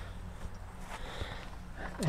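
A few faint clicks and light knocks from hands handling a miter saw.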